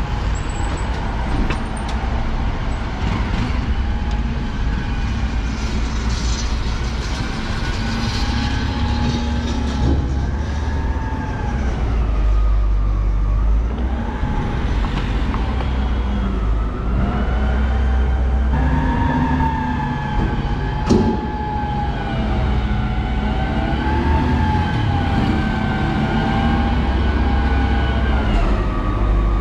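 Busy street traffic dominated by a heavy garbage truck's engine rumbling close by. A high wavering whine rises and falls every second or two throughout.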